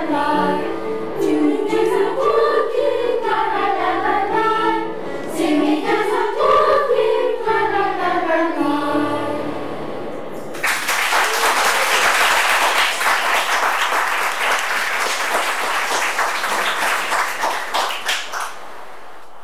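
A children's choir of 4th to 6th graders singing the last phrases of a song, the voices dying away about ten seconds in; then an audience applauding for about eight seconds.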